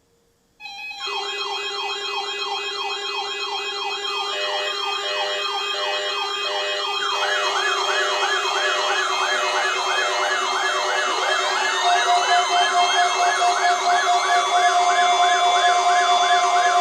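Electronic alert sirens: many siren tones wailing and warbling at once, about three warbles a second, starting abruptly under a second in and growing denser, over steady tones. They serve as emergency-alert attention signals. Four short beeps sound in the middle, and another steady tone joins about two-thirds of the way through.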